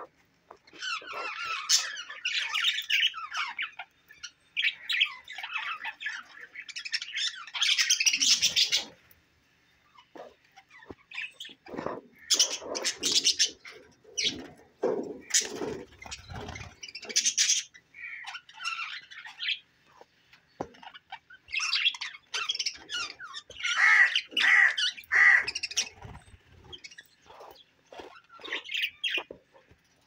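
A flock of budgerigars chirping, chattering and warbling together in bunches, with short lulls between; a few lower, sharper sounds are mixed in about halfway through.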